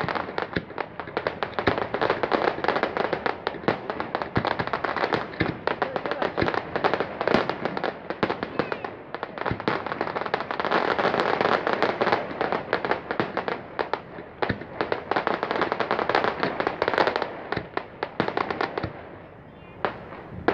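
Fireworks display: many shells bursting at once in dense, rapid crackling and popping, with louder bangs mixed in, easing off shortly before the end.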